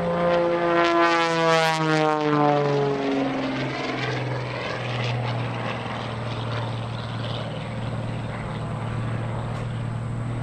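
Pitts Special aerobatic biplane's piston engine and propeller in flight, the pitch falling steadily over the first three seconds, then holding at a steady drone.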